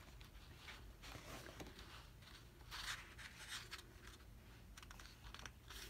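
Near silence: faint rustles and light ticks of photobook pages being handled, over a low room hum.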